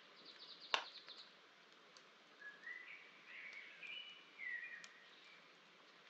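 Small twig campfire crackling with scattered sharp pops, one loud crack about a second in. A bird sings in the background: a quick high trill near the start, then a warbling phrase of rising and falling notes from about two and a half to five seconds.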